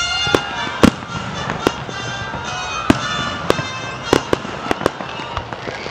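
Aerial fireworks bursting overhead in a quick, irregular series of sharp bangs, about ten in six seconds, the loudest just under a second in.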